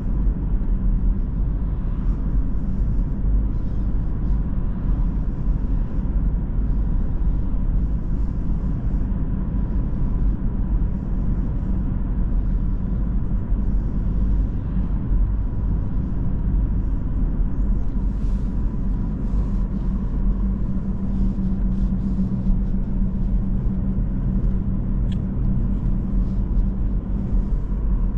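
Inside the cabin of a 2017 BMW 116d cruising on the road: the 1.5-litre three-cylinder diesel engine runs steadily under a constant low rumble of tyre and road noise. A low drone grows a little stronger about two-thirds of the way in.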